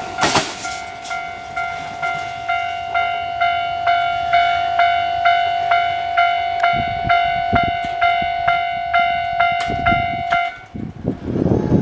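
Level-crossing warning bell ringing a steady, evenly repeated electronic ding, about two a second, then stopping near the end. The passing train's running noise fades out in the first moment.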